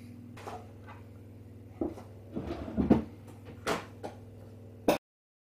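A few short knocks and handling sounds as a small Christmas house ornament is taken out of its packaging and set down on a table, over a low steady hum. The sound cuts off abruptly near the end.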